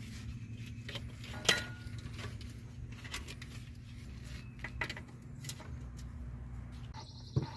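A few scattered metal clinks of a socket and extension being handled and fitted onto transmission bolts, the sharpest about one and a half seconds in, over a steady low hum.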